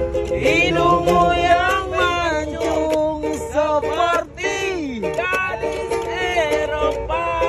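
A man singing to a strummed ukulele, with other male voices joining in.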